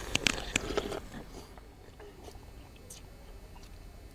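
A person eating: a quick run of sharp clicks and mouth sounds in the first second, then quieter chewing with a few small clicks.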